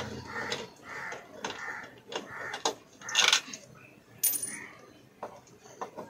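Metal clicks and clinks of a 10 mm spanner undoing the stator bolts on an LG front-load washer's direct-drive motor, with a louder metallic scrape about three seconds in. Repeated animal calls sound in the background.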